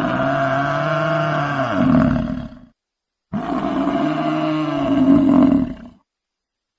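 Two long animal calls, each about three seconds, separated by a short pause; the pitch rises slightly and then falls in each.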